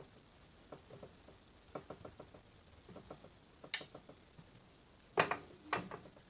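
Light metallic clicking from a 1940s Sheldon lathe's headstock gearing as the chuck is turned by hand to bring the back gear into mesh. Sharper metal clacks come a little past the middle and twice near the end.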